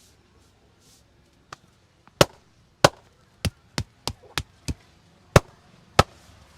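A barber's hands striking a head during a head massage: about nine sharp slaps starting about two seconds in, unevenly spaced at two or three a second.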